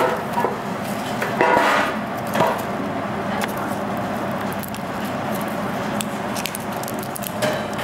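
Coarse rock salt grains crunching and shifting as hands turn the pork pieces and pack salt around them in a stainless steel tray, with a few sharper scrapes and clicks, as the pork is dry-salted for curing.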